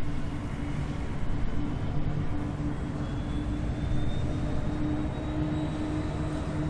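Diesel-electric freight locomotives hauling an empty iron ore train approaching, a steady engine drone with a low hum. A faint high whine joins about three seconds in.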